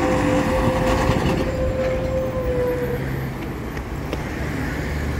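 City buses and road traffic passing with a steady rumble. A single steady whine sounds over it for about the first three seconds, then stops.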